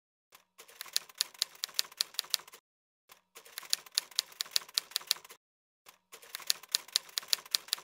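Typewriter keys clacking, about five strokes a second, in three runs of about two seconds each with short breaks between.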